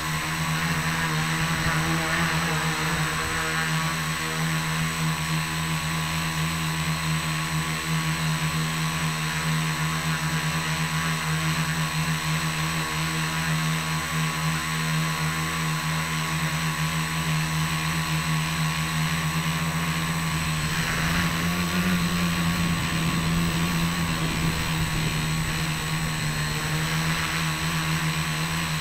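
Tricopter's three motors and propellers whirring steadily at close range, heard from a keychain camera mounted on the aircraft. About twenty seconds in the pitch shifts slightly and a low rumble joins in.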